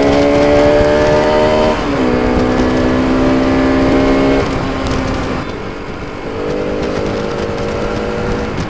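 Bajaj Pulsar RS200's single-cylinder engine pulling away, revs climbing, dipping at a gear change about two seconds in, climbing again and dropping at another shift near the middle, then running steady at lower revs, with wind rushing on the microphone.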